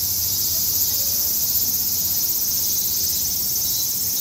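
A steady chorus of insects: a dense, high-pitched buzzing trill with no break.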